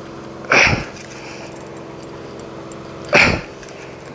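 An angler's two short, forceful exhalations, about two and a half seconds apart, from the strain of pumping a hard-bent rod against a heavy fish. A steady low hum runs underneath.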